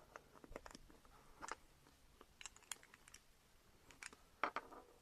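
Faint, scattered small clicks and taps of a deep socket and a plastic fuel-line quick connector being handled while an O-ring is pushed down into the connector, with a small cluster of clicks near the end.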